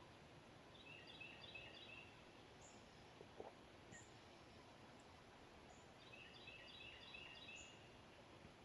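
Faint birdsong over a steady hiss: a songbird sings twice, each song a quick run of repeated notes lasting about a second, with thin, very high chip notes now and then. A brief low knock about three and a half seconds in.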